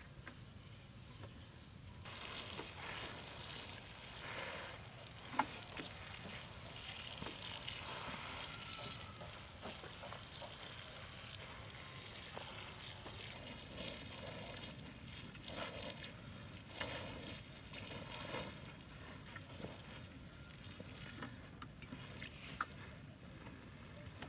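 Water sprinkling from a plastic watering can's rose onto loose soil and young plants: a steady hissing patter that starts about two seconds in and eases off near the end.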